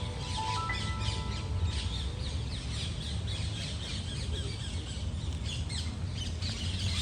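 Many quick, high bird chirps and calls close together over a steady low background rumble. A few notes of background music trail off about a second in.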